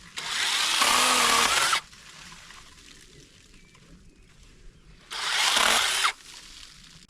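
Chainsaw cutting through brush in two bursts, the first about a second and a half long and the second about a second long, each starting and stopping sharply.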